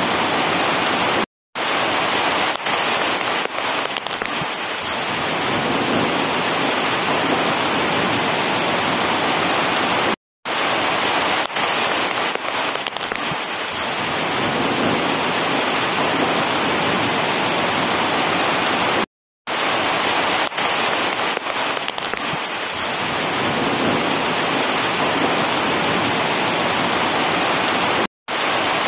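Steady heavy rain falling on hop vines, grass and wet pavement, with scattered sharper drop hits. The sound cuts out completely for a split second about every nine seconds.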